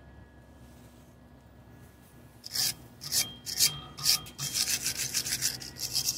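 Wire brush scrubbing slag and rust off a fresh weld on a steel bracket. From about two and a half seconds in it goes as repeated, uneven rasping strokes.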